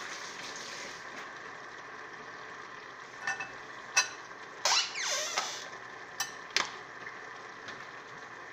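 Pans of brown stew red snapper and steamed cabbage sizzling steadily on a gas stove, with a handful of sharp clinks and a short scrape of kitchenware in the middle.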